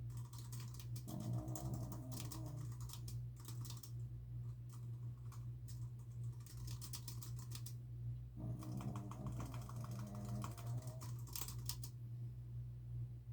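Fast typing on a computer keyboard in bursts, with a sleeping dog snoring twice, each snore about two seconds long, over a steady low hum. The typing stops about a second before the end.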